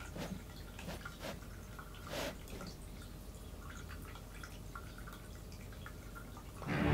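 A few faint, short taps and clicks over quiet room tone, then background music starts up again near the end.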